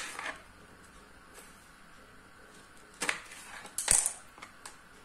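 Knife and kitchen utensils handled while a lemon is cut: a few light clicks and knocks, the loudest with a dull thump just before four seconds in.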